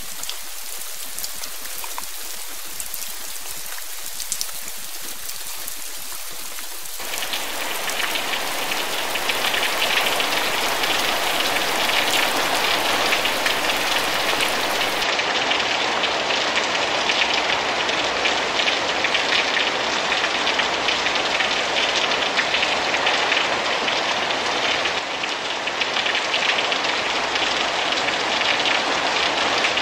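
Heavy rain falling steadily, pouring off thatched eaves and splashing onto wet ground and puddles. It steps up suddenly to a louder, fuller hiss about seven seconds in.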